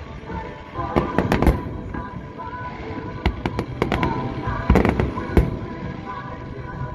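Aerial fireworks shells bursting: about ten sharp bangs in three quick clusters, over music playing in the background.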